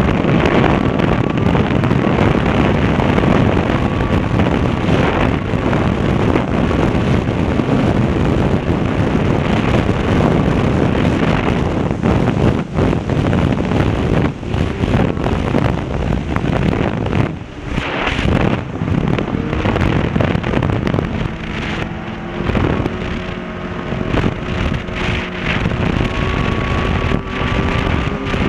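Snowmobile engine running at speed, mixed with heavy wind buffeting on the helmet-mounted camera's microphone. Near the end the engine's tone comes through more clearly, rising slightly in pitch.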